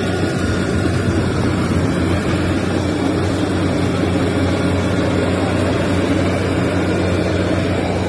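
Crawler rice combine harvester's engine running steadily while the machine cuts rice, a constant loud drone with an even low hum.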